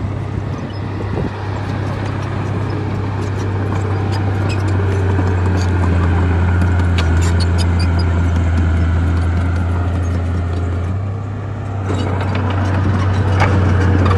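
Heavy diesel bulldozer engine running under load, with repeated metallic clanks from the tracks. The engine eases off briefly about eleven seconds in, then picks up again.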